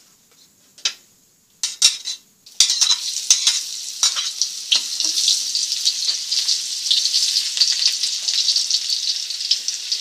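Red onions frying in hot cooking oil in a wok and being stirred with a spatula. After a quiet start there are a few knocks about two seconds in, then a loud, steady sizzle with crackles begins and keeps going.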